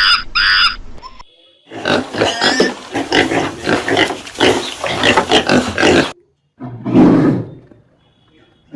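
Animal calls: a second of high repeated chirps, then about four seconds of rapid, noisy grunts and squeals, then a loud, low call about seven seconds in and another at the end.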